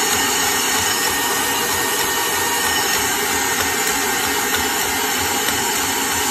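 Electric stand mixer running steadily, its wire whisk beating heavy cream and powdered sugar into whipped cream near stiff peaks.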